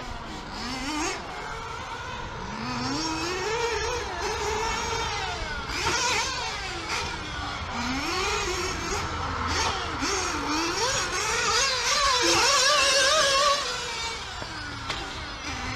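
Nitro RC car engine running on a track, its high-pitched whine rising and falling over and over as the throttle is worked through turns and straights. It is loudest a little past the middle.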